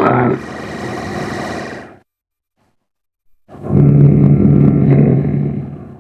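Zombie camel sound effect: two deep, rough creature vocalisations. The first tails off about two seconds in. After a short silence, a longer, louder one begins about three and a half seconds in and fades out near the end.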